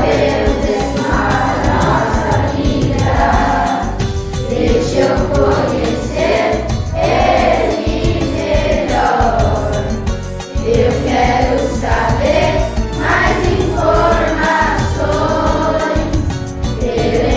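A song sung by a group of voices in chorus over instrumental accompaniment with a steady beat.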